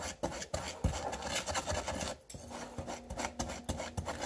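Spatula scraping and stirring a powdered drink-bomb mix of sugar, citric acid and baking soda around a bowl, in quick irregular strokes.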